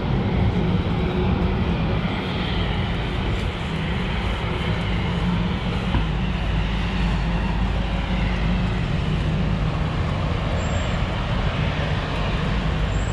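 Steady low rumble of distant jet aircraft at an airport, with an even hiss of rain over it and faint rising and falling engine whine.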